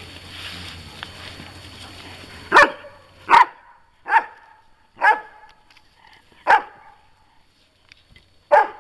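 Beauceron puppy barking: six short single barks, starting about two and a half seconds in and coming irregularly a second or two apart.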